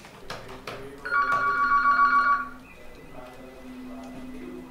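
Mobile phone ringtone: one electronic trilling ring starting about a second in and lasting about a second and a half, with the next ring beginning just at the end. A few soft knocks come before the ring.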